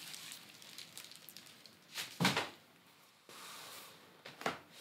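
Plastic air-cushion packing rustling as it is pushed aside, then a cardboard product box set down with a sharp thud about two seconds in, and a lighter knock near the end.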